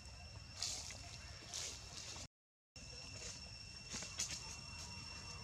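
Steady high-pitched insect drone with a few short scratchy noises over it. The sound drops out completely for about half a second near the middle.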